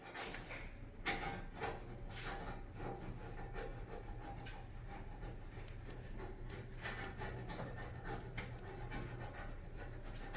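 Rustling and rubbing with many scattered light clicks and ticks, as of things being handled at close range.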